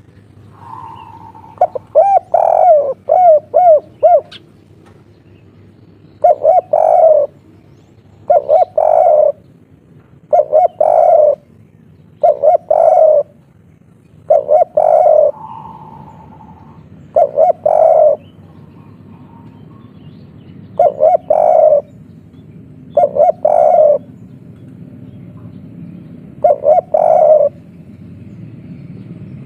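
Spotted dove (tekukur, derkuku) cooing: a quick run of arching notes a couple of seconds in, then loud coos of about a second each, repeated every two seconds or so. This is the 'kuk 3' call that bird keepers prize.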